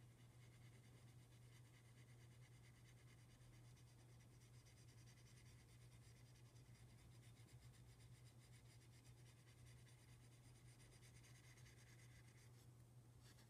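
Very faint scratching of a pyrography pen's hot wire tip drawn in short strokes across a wooden board, over a low steady hum.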